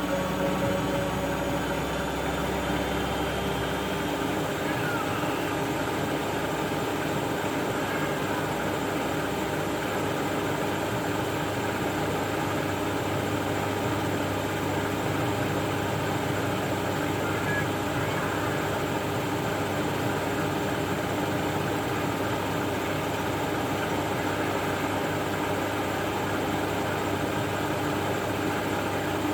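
Siemens Extraklasse F1300A washing machine running steadily, its motor and drum giving a continuous hum and whine; the low hum steps up in pitch about four seconds in.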